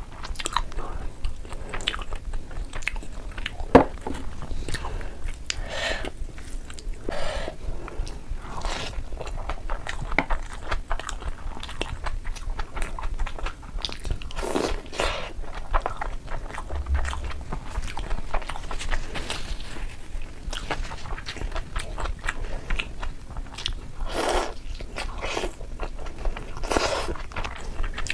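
A person chewing and biting mouthfuls of chicken biryani with rice and chicken leg, a steady run of irregular wet mouth noises and short clicks. One sharp click stands out about four seconds in.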